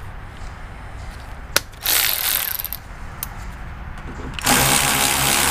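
Cordless electric ratchet running a bolt down in two bursts of motor whir, a short one about two seconds in and a longer one near the end, with a few light clicks between.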